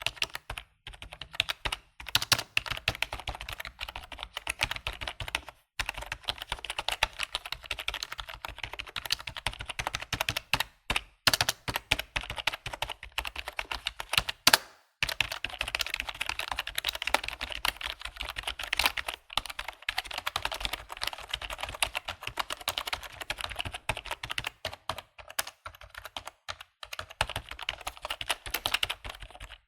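Computer keyboard typing: fast, continuous keystrokes clacking, broken by a few brief pauses.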